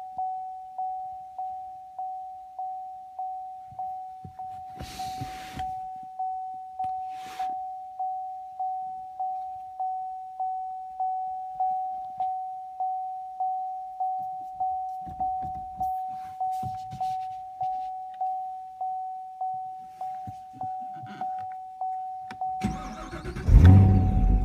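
A car's warning chime dinging steadily, about every 0.7 seconds, with a few faint knocks and rustles. Near the end the Camaro SS's V8 engine cranks and fires with a loud start, the chime still going.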